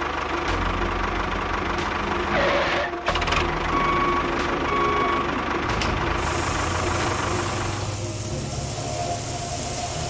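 Small motor of a miniature model construction machine running with a steady hum; a steady hiss joins about six seconds in.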